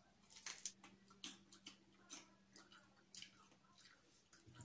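Faint close-up sounds of a person biting and chewing fried chicken: soft, irregular mouth clicks and wet crunches.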